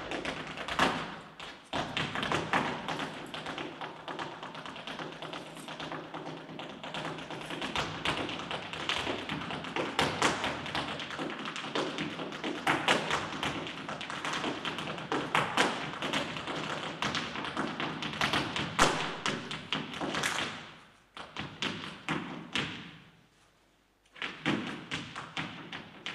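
Flamenco zapateado: rapid heel and toe strikes of a dancer's flamenco shoes on a stage floor, in quick rhythmic runs. The footwork dies away a little after three-quarters of the way through, goes nearly silent for a moment, then starts again near the end.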